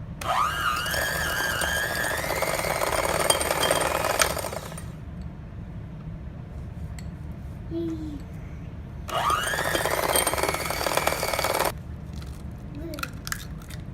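Electric hand mixer beating butter and sugar in a bowl, run twice: about four and a half seconds, then, after a pause, about two and a half seconds. Each run starts with a rising whine as the motor spins up, then holds steady and cuts off suddenly.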